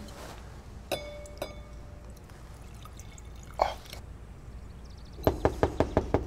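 Two glass clinks with a short ring from a glass decanter and brandy snifter, then cognac pouring quietly into the glass. About five seconds in, fast knocking on a door begins, about six knocks a second.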